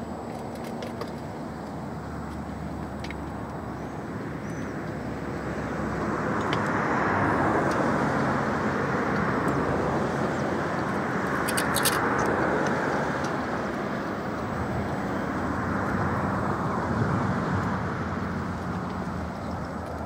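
Road traffic passing, swelling and fading in slow waves, over a steady low hum.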